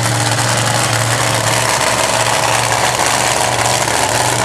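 Monster truck engine idling steadily at low revs, a deep even drone.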